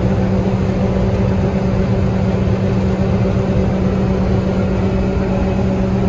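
Combine harvester running at working load while cutting wheat and unloading into a grain cart, heard from inside the cab: a loud, constant machine drone with a steady hum.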